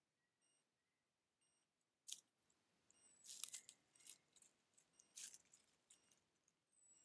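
A red fox cub nosing and sniffing right at the trail camera: a sharp click about two seconds in, then short bursts of scratchy clicks and rustles close to the microphone.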